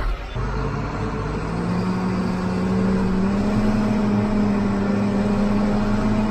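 John Deere tractor engine speeding up about a second in and then holding a steady high speed as it drives a PTO-powered grain roller mill and blower. The blower blows the last of the cracked corn out its spout with a steady rush of air.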